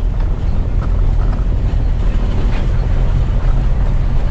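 Car driving slowly over a cobblestone road: a steady low rumble of engine and tyres.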